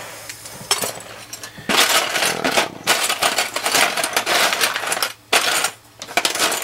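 Plastic model-kit parts and sprues clattering and rustling against each other and the cardboard kit box as a hand rummages through them. The clatter comes in irregular bursts, with brief breaks near the end.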